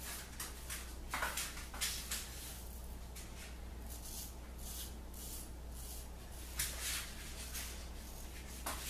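Straight razor (a Red Imp Wedge 132) scraping through lathered stubble on the cheek in a run of short strokes, some louder than others.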